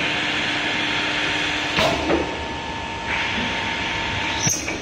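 Automatic glass drilling machine's drill grinding through a glass sheet: a steady hiss over the machine's motor whine, in two spells with a quieter gap between them. Sharp clunks come about two seconds in and again just before the end.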